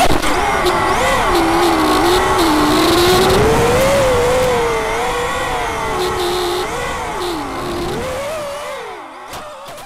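Armattan F1-5 FPV racing quadcopter's brushless motors and propellers whining, the pitch rising and falling constantly with the throttle through hard banking turns. The sound fades away near the end.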